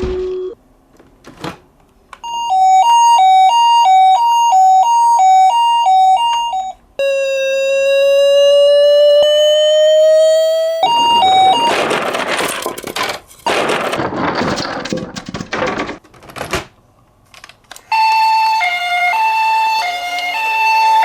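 Emergency-vehicle sirens: an ambulance's two-tone "pee-po" siren alternating between a high and a low note, then a single siren tone rising slowly in a wail. After that comes a few seconds of noisy rushing, and the two-tone siren returns near the end.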